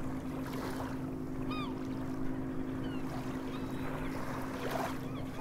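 Outdoor pool ambience: water gently lapping over a steady low hum, with a bird chirping briefly about a second and a half in and again near three seconds.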